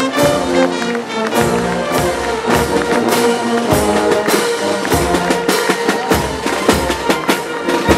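Brass band music with drums keeping a steady beat.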